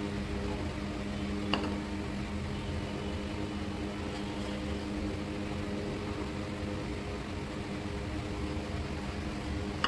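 Steady mechanical hum of a running motor-driven appliance, an even drone with a few held low tones, and a single sharp click about a second and a half in.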